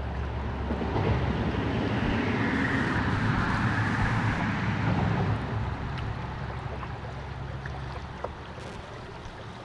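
Rushing river water with wind noise on the microphone from a canoe on the move. It is loudest in the first half and fades away through the second half.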